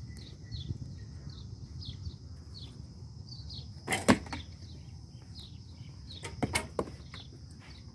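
Wooden recurve bows being shot: one loud, sharp snap of a bowstring released about four seconds in, then a quick cluster of two or three snaps about two seconds later. A steady run of short high chirps goes on in the background.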